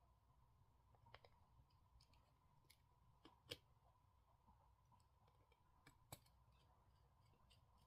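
Near silence with a few faint, scattered clicks and taps of small tools and phone parts being handled during smartphone reassembly.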